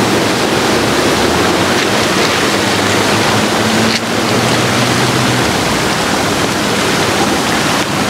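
Ocean surf surging and washing over shore rocks: a loud, steady rush of water.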